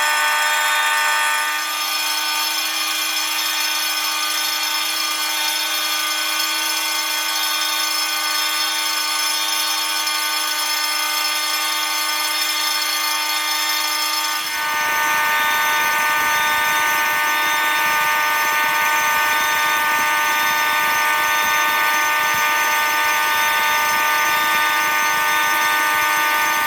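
A bank of about a dozen fire alarm notification devices sounding together in a dense, steady wall of electronic horn tones. About a second and a half in, one high tone drops out. Around fourteen seconds in, a lower, coarser rattling layer joins and the mix changes.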